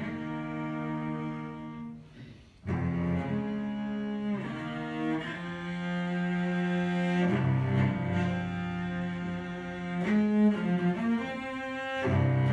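Solo cello playing slow, long-held bowed notes, with a brief break about two seconds in before the next phrase begins.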